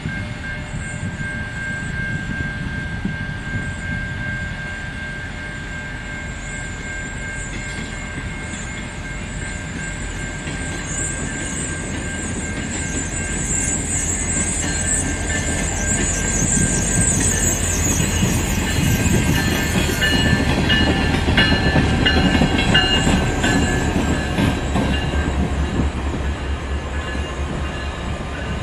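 Short freight train passing slowly, pushed by an EMD GP39-3 diesel locomotive with a caboose and one tank car ahead of it: diesel engine rumble and wheels clicking over the rail joints grow louder, peak about two-thirds of the way through, then ease off. Brief wheel squeal around the loudest part.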